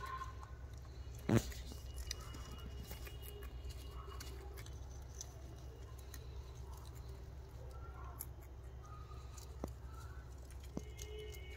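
Baby rabbits nibbling and shuffling among cauliflower leaves: faint scattered soft clicks and rustles over a low steady hum, with one sharper knock about a second in.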